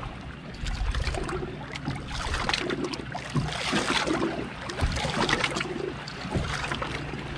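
Water lapping and sloshing against a bass boat's hull, with wind buffeting the microphone and a steady low hum underneath.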